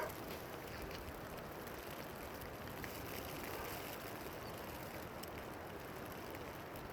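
Steady hiss of rain and wind, with faint scattered ticks.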